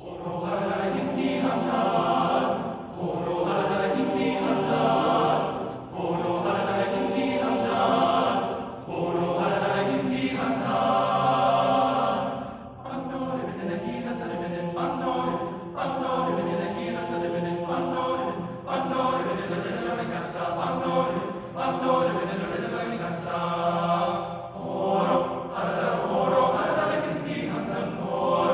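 Men's chorus singing together in several voice parts, in phrases a few seconds long with brief breaths between them; the singing comes in right at the start.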